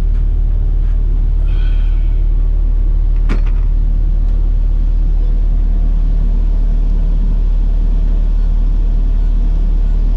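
Excavator's diesel engine running steadily, heard from inside the cab, with the air-conditioning fan blowing on full. A short tone about one and a half seconds in and a sharp click about three seconds in.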